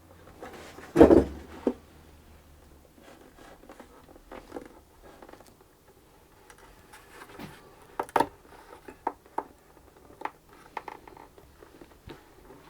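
Bench handling sounds while a violin neck is glued and clamped onto the body: one loud knock about a second in, then scattered light clicks and taps of wood and tools, the sharpest a pair of clicks around eight seconds in.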